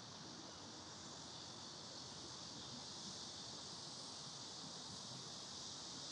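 Steady high-pitched drone of an insect chorus in summer heat, with a low, even rumble underneath.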